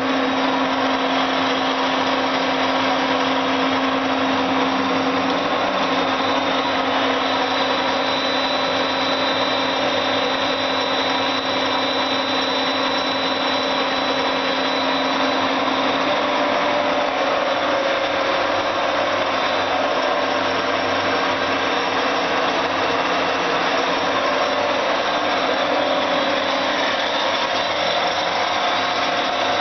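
Cincinnati 205-12 MI universal milling machine running under power: a steady mechanical whir from its motor and gearing, with several steady tones. A lower tone drops away about six seconds in.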